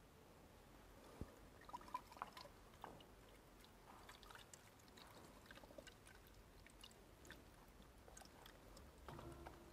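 Faint trickle and gurgle of coolant being poured into a motorcycle radiator's filler neck, with a few light clicks and taps.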